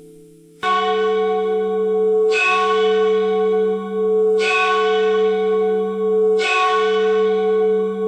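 A church bell tolling: one stroke about every two seconds, four strokes in all, each ringing on into the next. The first stroke comes about half a second in, after the fading tail of an earlier ring.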